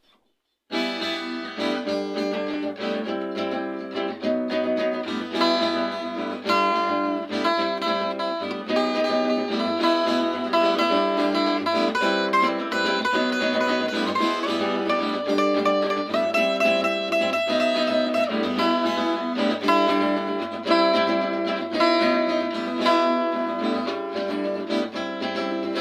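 Acoustic guitar playing a rhythmic instrumental intro, starting about a second in.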